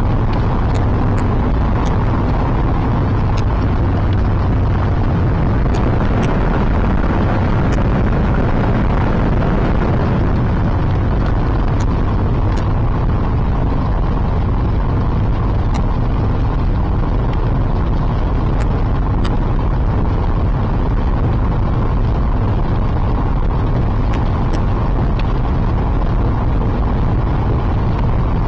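Steady rumble of a car driving, road and engine noise, with faint scattered clicks.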